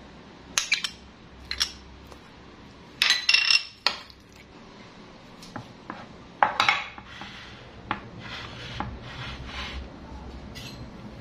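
Metal spoon and fork clinking and scraping against ceramic bowls, in scattered sharp clinks with a louder cluster about three seconds in and another past the middle.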